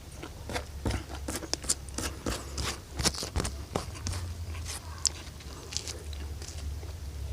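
Close-up eating sounds: irregular sharp crunches and mouth clicks of crunchy food being bitten and chewed, thickest in the first few seconds, over a low steady hum.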